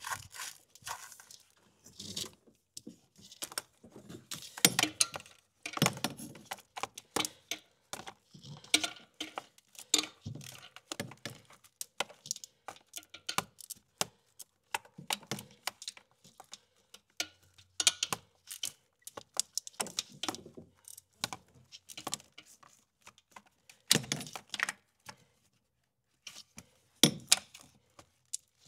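Metal hand tools clicking and clinking irregularly, with short knocks, as the starter's 14 mm mounting bolts are worked loose on a Toyota 4.7 V8.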